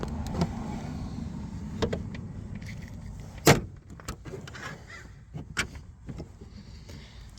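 Scattered clicks and knocks of plastic interior trim and fittings being handled inside a car, the sharpest knock about halfway through.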